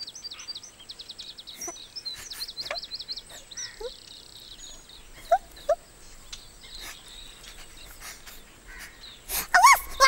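Birdsong: a bird gives a fast run of short, high chirps for the first few seconds, then calls only now and then, with faint scattered clicks. A louder voice-like sound cuts in just before the end.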